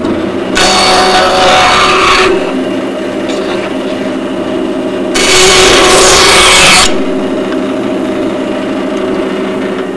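Ridgid stationary woodworking power tool switched on, its motor running with a steady hum, broken by two loud spells of about two seconds each as wood is worked against it.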